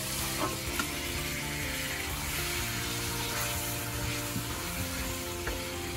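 Marinated beef sizzling as it hits hot oil and spice paste in a metal pot, the hiss starting suddenly and going on as it is stirred with a spatula, with a few light clicks in the first second. Background music plays under it.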